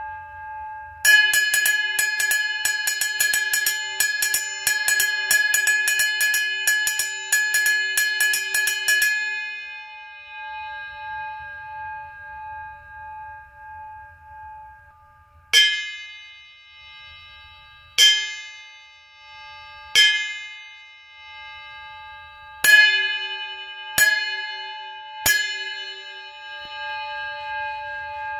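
Homemade bell cymbal cut from a steel saw blade, struck with a drumstick. It starts with a fast, continuous run of quick hits for about eight seconds, then comes six single strikes, each left to ring out with a clear, sustained ringing tone.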